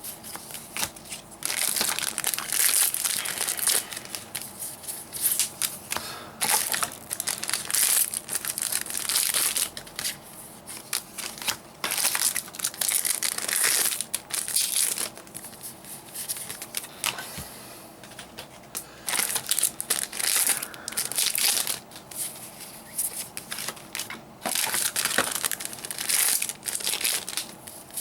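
Foil trading-card booster-pack wrappers being torn open and crumpled, in repeated bursts of crinkling with short pauses between them.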